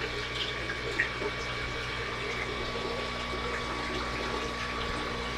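Voxelab Aquila X2 3D printer running a print: a steady whirring with a thin steady whine and a few faint light ticks.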